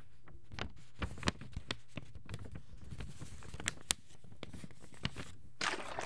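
Paper sound effects: irregular crackling clicks and crinkles, with a short tearing rustle near the end.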